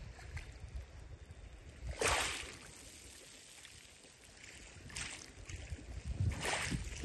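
Small waves washing up over a pebble beach, the water hissing through the stones in three surges, the loudest about two seconds in, over a low rumble.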